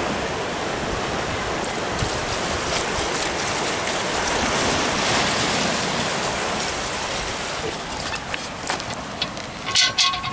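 Water pouring in a steady stream from a plastic jerrycan into a metal cooking pot, stopping a little over two-thirds of the way through. A few short knocks come near the end.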